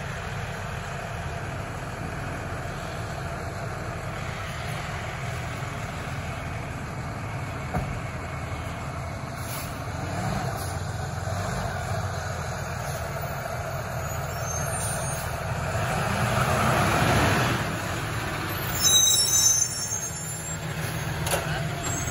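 2024 New Way Sidewinder automated side-loader garbage truck running as it rolls up the street, its diesel engine growing louder about sixteen seconds in. Near the end there is a brief high-pitched brake squeal as it pulls to a stop.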